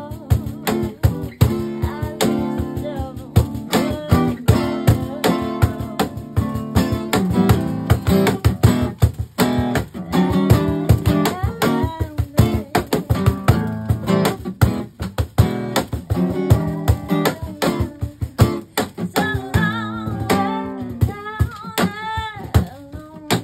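Live acoustic band music: strummed acoustic guitar chords over sharp, regular cajon hits, with a woman's voice singing at times, most clearly near the end.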